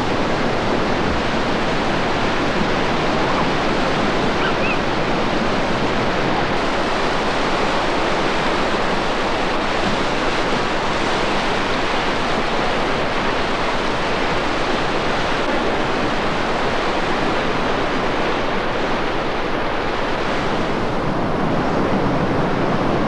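River rapids: whitewater rushing over rocks in a steady, unbroken noise.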